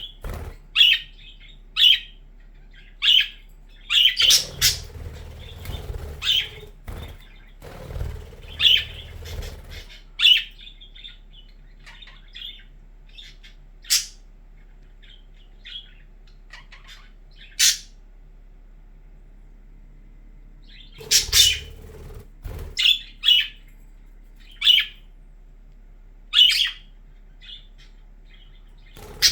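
Budgerigars chirping in short, sharp calls, sometimes several in quick succession and sometimes a few seconds apart, with a faint low rumble coming and going underneath.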